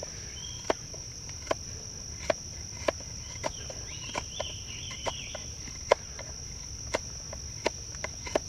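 Knife blade shearing straight down the end of a hardwood oak stick braced on a stump's edge, about a dozen short, sharp cracks at a steady working pace as wood is hogged off to point the stick. A steady high drone of crickets runs behind.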